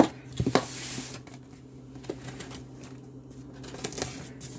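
Cardboard case being handled and turned over while a knife slits its packing tape: a sharp knock at the start, a short scraping rasp about half a second in, then quieter scrapes and taps of cardboard.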